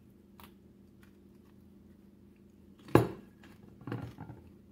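Tableware knocking on a table: one sharp knock about three seconds in, then a few softer knocks near the end, over a faint steady hum.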